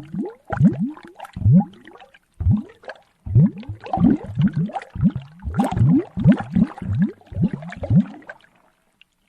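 Large bubbles blooping in liquid: a run of deep bloops at about two a second, each rising quickly in pitch, in an uneven rhythm, stopping about eight and a half seconds in.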